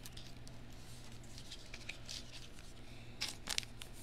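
Faint handling of trading cards, soft scratchy sliding and light clicks, with a short cluster of scratchy sounds about three seconds in, over a low steady hum.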